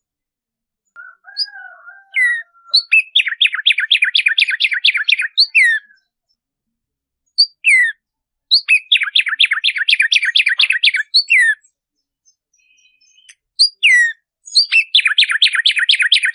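Black-striped sparrow (tumba yegua) singing three songs a few seconds apart. Each song opens with a note or two, runs into a fast series of about five sharp down-slurred notes a second, and ends with a longer falling note. Softer, lower notes come just before the first song.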